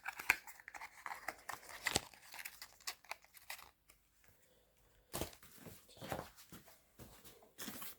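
Plastic packaging being handled, crinkling and rustling, with small clicks; it stops for about a second midway, then picks up again.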